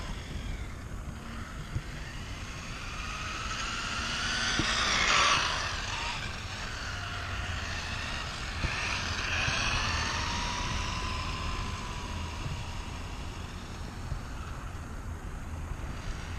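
RC car with a brushless motor and a 3D-printed plastic two-speed transmission whining as it drives in first gear, the pitch rising and falling with the throttle; loudest about five seconds in.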